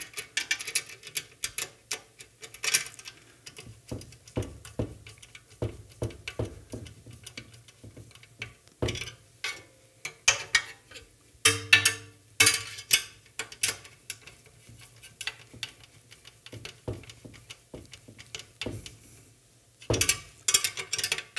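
Screwdriver and wrench tightening #10 bolts and Nylock nuts on an aluminium robot frame: irregular small metallic clicks and taps. A brief metallic ring sounds about halfway through.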